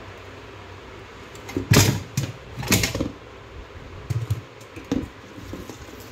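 Handling noise as a Hikvision DVR is taken apart: its plastic cover and metal base knock and clatter, loudest in two bursts about two and three seconds in, followed by a couple of lighter single knocks.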